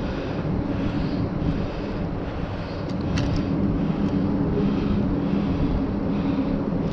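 Steady low engine drone, with a couple of faint sharp clicks about three seconds in.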